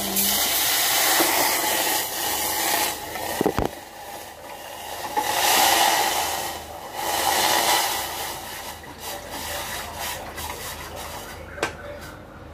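Water pouring from a plastic bottle into a steel saucepan in a few long pours, with a sharp knock about three and a half seconds in.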